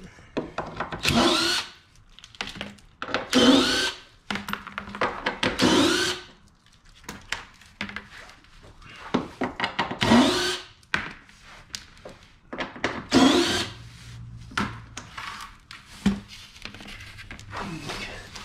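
Cordless power drill-driver spinning out the 10 mm bolts that hold the plastic lower splash shield, in about five short bursts, each whirring up and winding down. Clicks and rattles of bolts and plastic come between the bursts.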